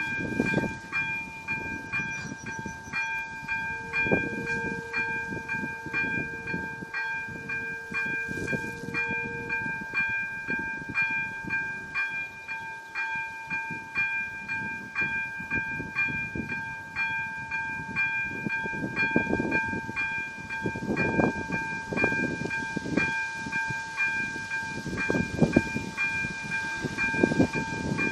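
Second-generation electronic bell of an AŽD 97 level-crossing warning signal ringing in rapid, evenly spaced strokes. Strong wind gusts rumble on the microphone, most in the second half.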